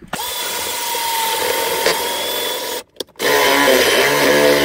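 Cordless drill boring down through a van's countertop to make a hole for a propane line. The motor whines under load, stops for a moment just under three seconds in, then starts again at a different pitch.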